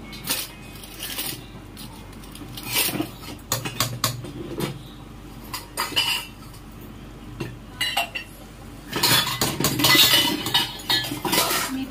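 Spoons clinking against plates and bowls: scattered sharp clinks, coming thick and fast for a couple of seconds about nine seconds in.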